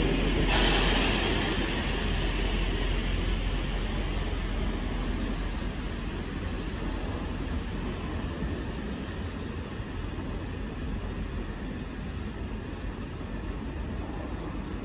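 Passenger train coaches rolling slowly along a far track, with a steady low rumble and rushing noise that slowly fades. A brief hiss comes about half a second in.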